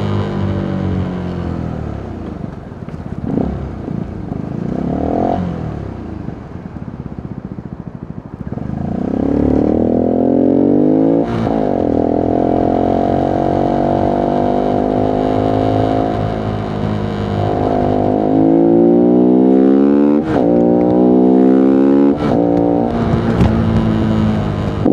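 Voge 125R's 125 cc single-cylinder four-stroke engine under way. It runs low and easing off for the first several seconds, then accelerates hard from about nine seconds in, the revs climbing again and again with a short drop at each gear change.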